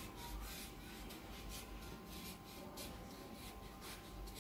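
Felt-tip sketch pen scratching on paper while writing by hand in cursive: a quick, irregular run of short, faint strokes.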